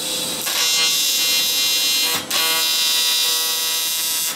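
AC TIG welding arc on aluminium, buzzing steadily. It falters briefly about two seconds in, then cuts off suddenly near the end as the tungsten is contaminated.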